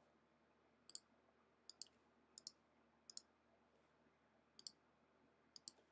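Faint computer mouse button clicks, each a quick double click of press and release, six times at uneven spacing about a second apart.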